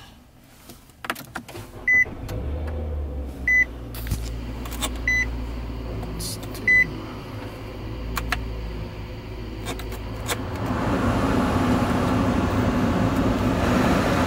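Inside a car: a few clicks, then a low engine rumble starts about two seconds in, while a dashboard warning chime beeps four times at even intervals. About ten seconds in, a steady rushing noise swells up and holds.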